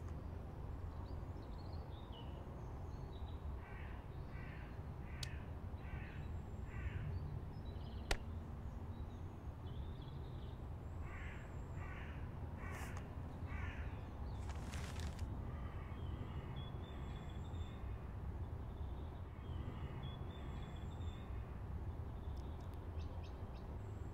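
A bird giving runs of harsh, evenly spaced cawing calls, about five in a row and then four more, over a steady low outdoor rumble. A single sharp click cuts through about a third of the way in.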